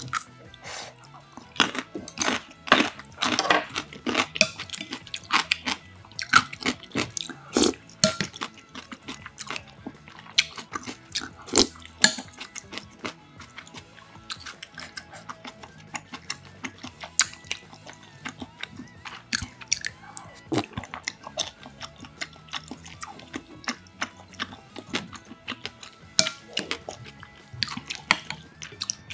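Close-miked eating sounds: biting and chewing, and a spoon clicking and scraping against a glass bowl of soup, in many short sharp strokes, busiest in the first half. Soft background music runs underneath.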